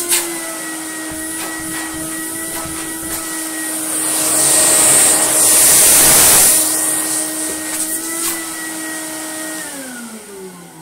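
Canister bench vac (small shop-vac type) running with a steady motor whine. About four seconds in, the rush of air grows loud for a few seconds as the open hose end swings near. Near the end the motor is switched off and its whine falls in pitch as it winds down.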